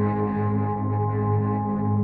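Ambient background music of sustained, droning tones.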